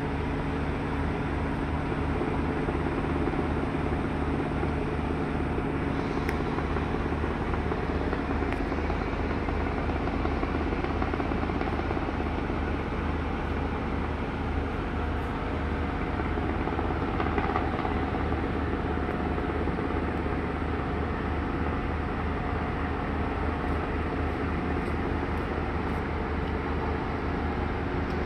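Helicopter flying overhead, its rotor making a steady low chopping beat, over a steady hum of heavy machinery.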